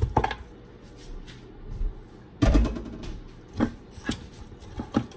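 Raw seasoned pork neck bones tipped from a glass bowl into a speckled enamel roasting pan and pushed into place by gloved hands. There is a heavy thud about halfway through, then several short knocks of meat and bone against the pan.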